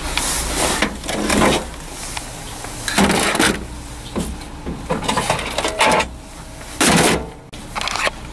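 Discarded electronics, plastic casings and metal chassis, clattering and scraping as they are shifted around in a steel dumpster, in about six separate bursts.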